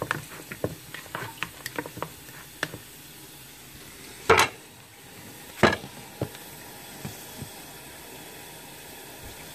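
Hands squelching through raw chicken feet and sticky sauce in a plastic bowl: a quick run of short wet squishes and clicks, which stops after about three seconds. Two loud bumps follow, a little over four seconds in and again about a second later.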